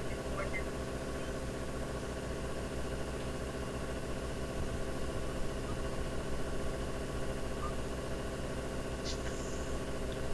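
Steady hum of a running motor, made of several tones held level. A single short click comes about nine seconds in.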